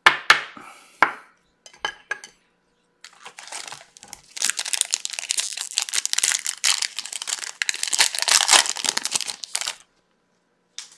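Wrapper of a Topps Chrome trading-card pack crinkling and tearing as it is ripped open by gloved hands, a dense crackle lasting about six seconds. A few sharp taps at the start.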